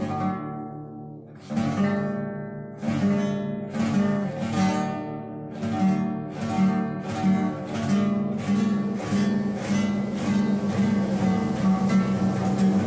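Acoustic guitar fitted with a small handheld implement so it sounds like a harp and a bandola llanera, picking a Paraguayan tune. Sharp, bright plucked notes come slowly at first, then about two a second over a ringing bass.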